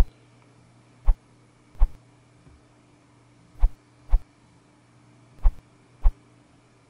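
About seven short, dull thumps at uneven intervals: a fingertip tapping and swiping on the glass screen of an iPad Pro lying on its box, over a faint steady hum.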